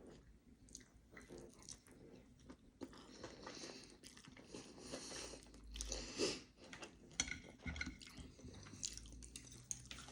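A person chewing food close to the microphone, with soft, irregular crunchy bites.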